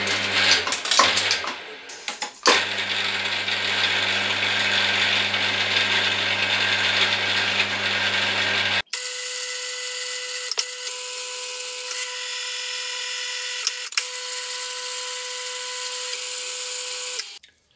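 Bench mill-drill running and drilling into the workpiece clamped in its vise: a steady motor hum with gear noise that dips briefly about two seconds in. After an abrupt cut the machine runs on with a steadier single whine and a couple of light clicks, stopping just before the end.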